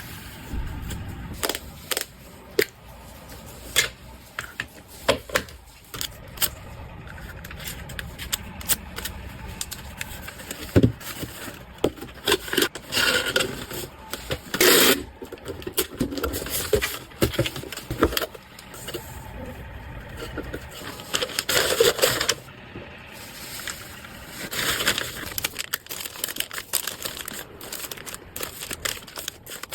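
Hands handling packaging and small objects: scattered clicks and taps, with several longer stretches of rustling and crinkling.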